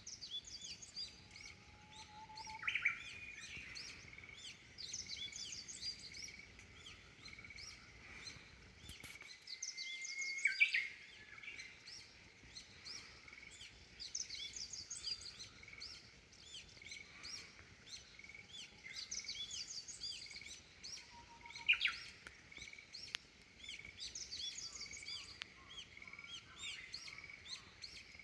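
Many wild birds chirping together: a dense chorus of short, high repeated notes, with a few louder, sharper upward-sweeping calls breaking out three times.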